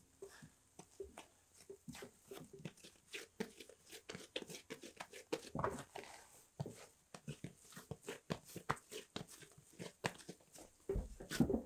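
Yeast bread dough being torn, shaped and pressed by hand in a floured wooden dough trough: a run of small sticky clicks and crackles, with soft thumps as the dough is pressed and set down, heaviest near the end.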